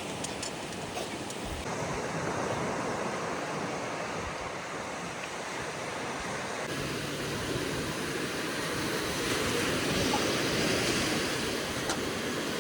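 Sea waves washing onto the shore: a steady rush of surf noise, its tone shifting abruptly about two and seven seconds in.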